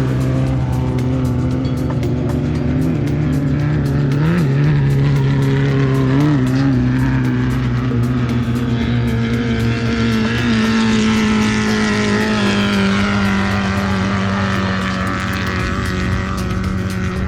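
Off-road race vehicle's engine running hard at high, fairly steady revs, its pitch shifting a little about halfway through.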